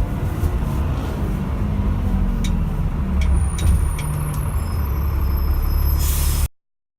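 London bus heard from on board: a steady low engine and drivetrain rumble with a low groan that slowly falls in pitch, and several sharp rattles. A short hiss comes near the end, and the sound then cuts off suddenly.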